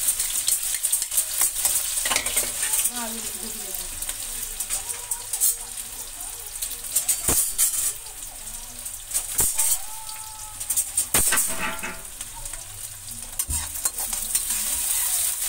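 Chopped onions sizzling in hot oil in a kadai: a steady high hiss. A few sharp metal clinks against the pan, and stirring with a spatula near the end.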